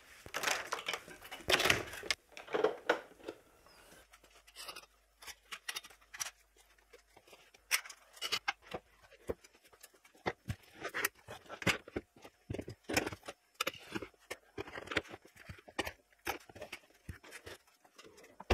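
A door opening, then a long run of separate clicks, knocks and rattles as camera and lighting gear is handled and packed into the back of a van.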